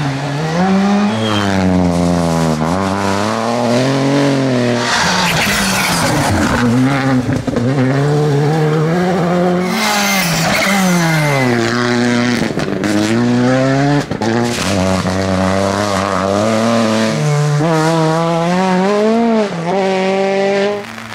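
Rally car engine at full revs, its pitch climbing and dropping again and again through gear changes and lifts. There are two short stretches of hiss and a few sharp cracks in between.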